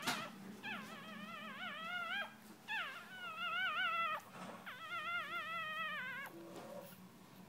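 Pomeranian puppy whining in three long, high, wavering cries, each about a second and a half long. A sharp click comes right at the start.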